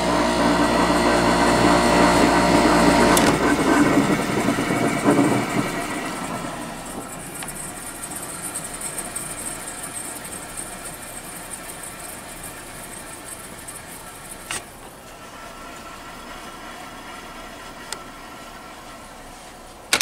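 GE ASV05LCS1 window air conditioner running, its compressor humming with the fan blowing; about three seconds in the compressor hum cuts off and the fan noise winds down over the next few seconds. What is left is a faint steady hiss and a few sharp clicks later on.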